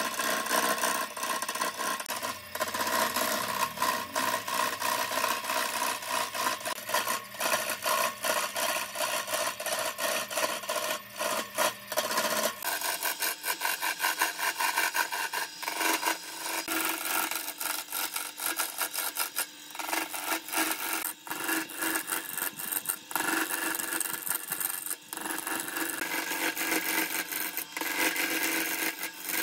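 A turning tool cutting into a glued-up block of wood spinning on a wood lathe, with a steady shaving noise broken by a fast rattle as the edge meets the block's uneven faces. The sound is continuous, and a low hum under it stops about a third of the way through.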